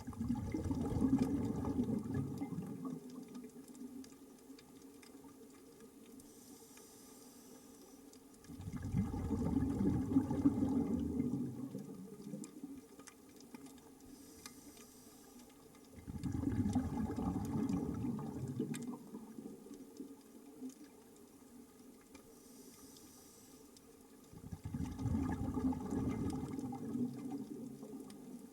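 Scuba diver breathing underwater through a regulator: four long bursts of exhaled bubbles, about eight seconds apart. Between them comes a short, faint hiss of the regulator as the diver breathes in.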